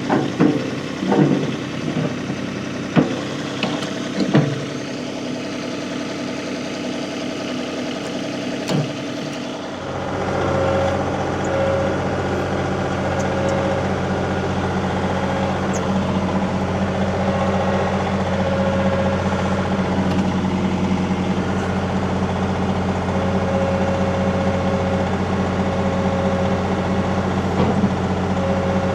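Compact tractor engine running steadily, with a few sharp knocks in the first few seconds; about ten seconds in the engine gets louder and deeper as it works, moving a trailer with a hitch on the front loader bucket.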